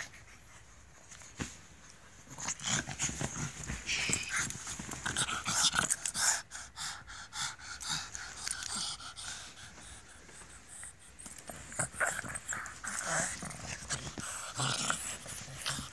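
A pug panting and snorting in irregular, breathy bursts, loudest a few seconds in, with scattered short rustles and clicks.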